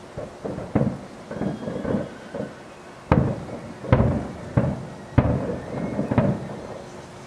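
Fireworks going off in a rapid, irregular series of booms and bangs, each with a rumbling echo. The sharpest bangs come about three, four and five seconds in.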